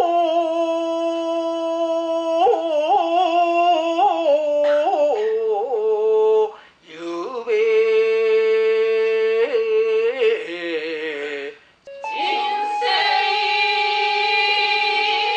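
Solo male shigin recitation: a man chanting a classical Chinese poem in the Japanese style, holding long notes and then wavering them in ornamented turns, with short pauses for breath. In the last few seconds a group of women takes over, chanting in unison above a steady held tone.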